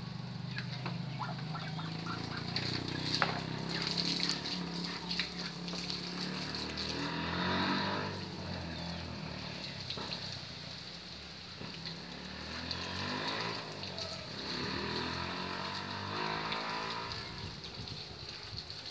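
Road traffic: a large vehicle's engine running with a low hum, then several vehicles passing one after another, each swelling and fading.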